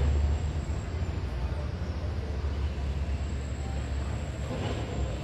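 Steady low rumble and hiss of outdoor street ambience, a little louder at the start, with a faint high steady tone above it.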